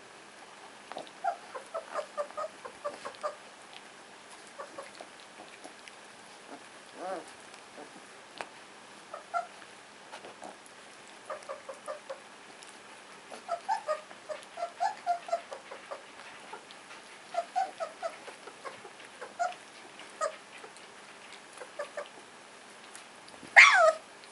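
A litter of 23-day-old puppies giving short, high squeaks and whines in scattered clusters as they wrestle, with one louder yelp near the end.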